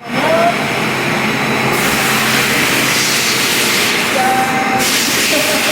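Loud, steady machine noise with a strong hiss, with brief faint squeaky tones about half a second in and again past four seconds.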